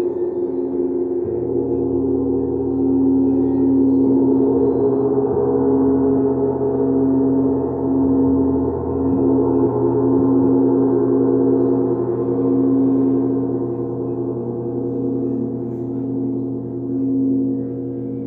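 Crystal singing bowls ringing in several sustained, overlapping tones, one being rubbed around its rim with a mallet; the strongest tone wavers in a slow, regular pulse.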